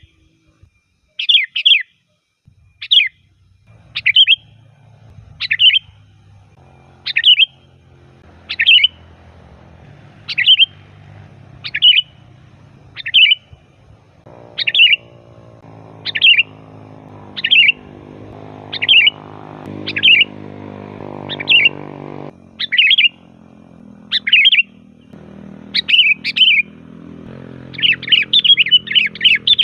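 Sooty-headed bulbul (kutilang) calling: short, bright chirping phrases repeated at an even pace of about one every one and a half seconds, breaking into a quicker run of notes near the end.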